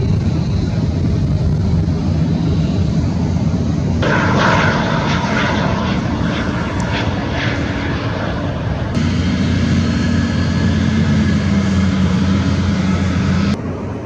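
Airliner jet engines in a run of cut-together clips: a steady low rumble that changes abruptly about four seconds in and again about nine seconds in, with a thin high whine over the rumble in the later part.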